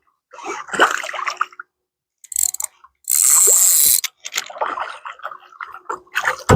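Water splashing and sloshing in several separate bursts as a bass on a topwater lure is fought at the surface beside a kayak; the longest and loudest splash comes about three seconds in.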